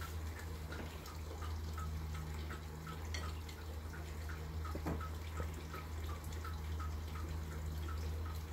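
Steady low hum with faint, regular dripping, about three drops a second, and a couple of light clicks near the middle.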